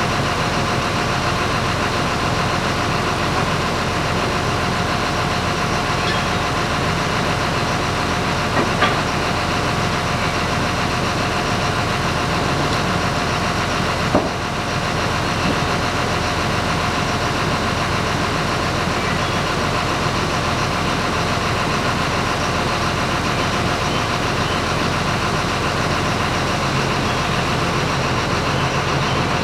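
An engine running steadily at idle, with a few short metallic knocks about a third of the way in and again near the middle.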